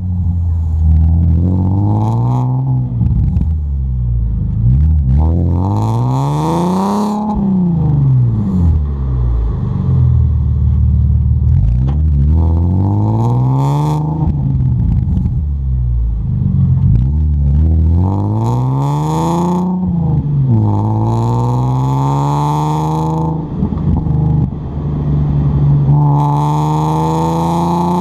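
Audi A4 3.0 Quattro's V6 heard at the tailpipe of its custom exhaust while driving: the exhaust note climbs in pitch as the car accelerates and falls back as it eases off, several times over.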